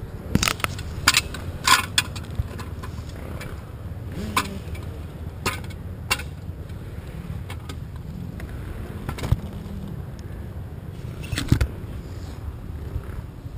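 Honda dirt bike's engine idling with a steady low rumble, over which come sharp clanks and scrapes, about nine in all, from the bike being handled.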